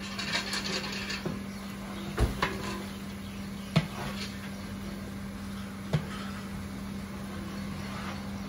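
Three sharp metal knocks against a huge aluminium cooking pot, a couple of seconds apart, as a steel jug is emptied into it and a long ladle stirs; lighter clatter at the start, over a steady low hum.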